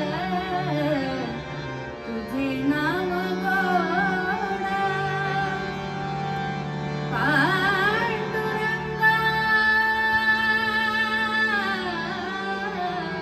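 A woman singing a slow Marathi devotional abhang in a classical style, with long, ornamented phrases that slide and waver in pitch over steady, held accompaniment notes.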